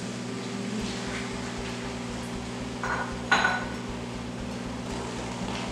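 A ceramic bowl and spatula clink against a frying pan as chickpeas are tipped into the curry and stirred. Two knocks come about three seconds in, the second a short ringing clink, over a steady low hum.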